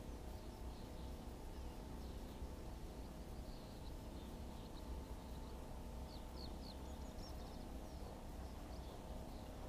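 Faint, short high bird chirps in small clusters, most of them past the middle, over a steady low rumble.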